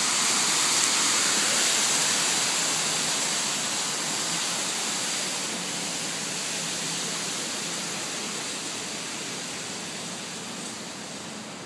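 Water falling in a sheet down the face of a wall fountain, a steady rushing that grows gradually fainter.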